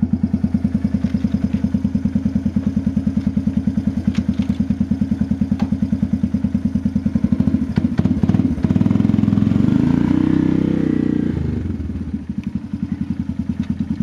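1986 Kawasaki Bayou 300 ATV's single-cylinder four-stroke engine idling with each firing pulse distinct, exhausting through a muffler with a rock-punched hole in it. About eight seconds in the engine speed rises for a few seconds, then it drops back to idle.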